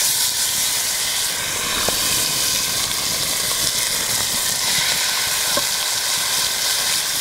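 Chunks of venison sizzling steadily as they sear in hot oil in a cast-iron Dutch oven, stirred with a wooden spoon, with a couple of light ticks.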